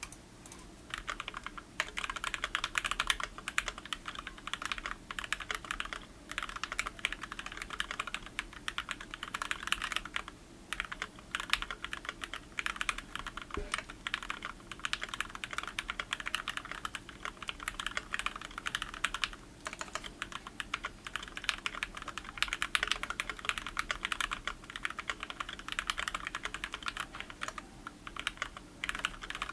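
ID80 mechanical keyboard with Gateron Yellow KS-3 linear switches being typed on: fast, continuous runs of key clacks, broken by a few brief pauses.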